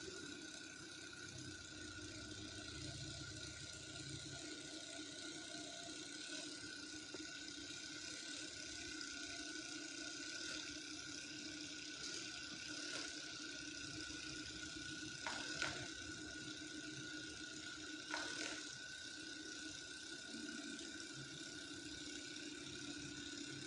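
Electric chiropractic adjusting gun running with a faint, steady whir, its pitch shifting slightly now and then, with a few light clicks in the middle.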